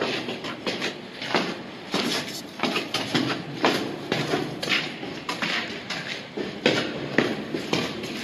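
Footsteps going down concrete stairs, about two steps a second.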